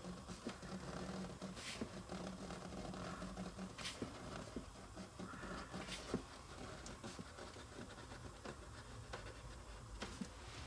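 Pen scribbling on paper, faint irregular scratching as the pen tip fills in hair strokes on a drawn pattern.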